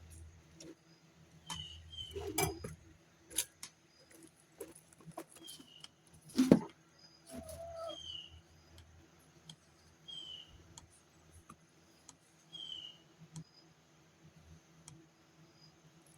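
Rotator of an ACA Hurricane 130 siren turning with the siren itself not sounding. There is a faint hum and a short high squeak about every two and a half seconds, with scattered clicks and one loud knock about six and a half seconds in.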